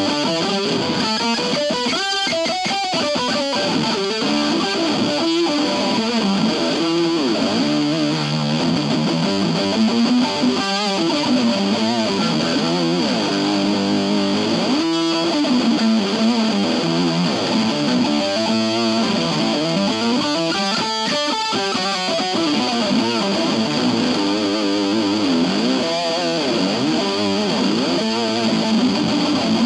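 Electric guitar (IYV Thinline Telecaster) played through a Keeley compressor and a Pigtronix Space Rip synth pedal into an Orange Crush 20 amp: sustained, effected notes that bend and waver up and down in pitch.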